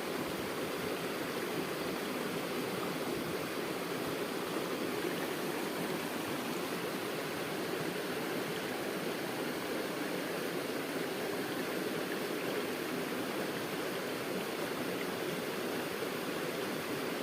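River water running and rushing steadily.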